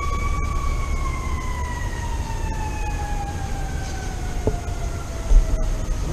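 A siren sounding one wailing tone that rises slightly and then slowly falls in pitch, winding down over several seconds, over a steady low rumble. A short thud comes about five seconds in.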